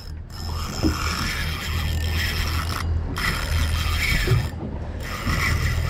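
Penn Slammer spinning reel working under load against a big sailfish, its gears and ratchet running steadily.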